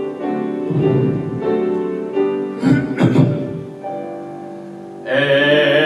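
Piano playing a hymn accompaniment, with two brief noises about three seconds in; a man's singing voice comes in near the end.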